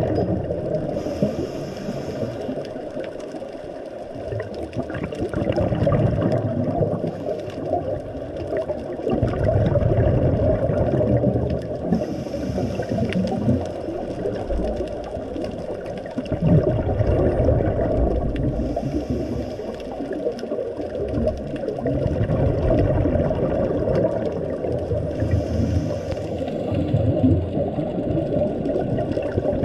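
Muffled underwater noise picked up by a camera in a waterproof housing: low sloshing and rumbling of moving water that swells and fades every few seconds. Brief bursts of hiss come four times.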